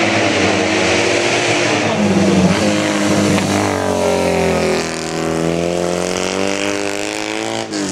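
Racing sidecar outfit's engine running hard as it sweeps past through a bend. Its pitch drops as it goes by, about halfway through, then climbs slowly as it accelerates away.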